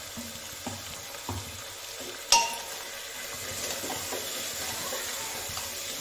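Potato and jackfruit pieces frying in mustard oil in an open pressure cooker: a steady sizzle while a spoon stirs them, with a few light knocks and one sharp clank of the spoon against the pot a little over two seconds in.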